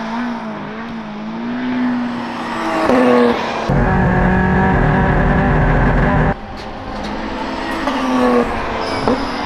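Toyota Starlet KP61 race car's engine revving hard on the circuit, its pitch rising and falling with throttle and gear changes. For a few seconds in the middle it is heard from inside the cockpit as a heavy, booming drone, which cuts off suddenly when the sound returns to trackside.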